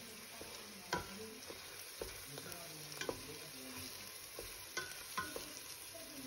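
Rice sizzling in a hot stainless steel pot while a wooden spatula stirs it, with the spatula scraping and knocking against the pot several times.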